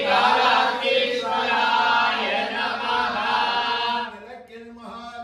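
Men chanting a devotional hymn together, led by a priest. The chant drops away about four seconds in.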